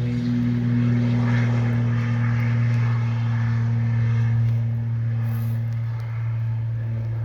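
Twin turbocharged piston engines and propellers of a Piper PA-31-350 Navajo Chieftain at full takeoff power, a loud steady low drone with a propeller hum. The sound eases slightly near the end.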